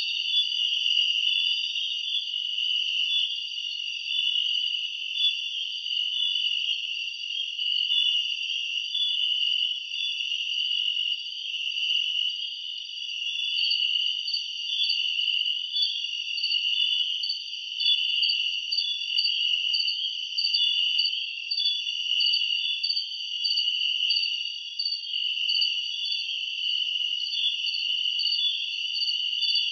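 Steady night chorus of crickets and other insects: several high, shrill trills layered at different pitches, one of them pulsing rapidly, with no sound from the animals in the kitchen.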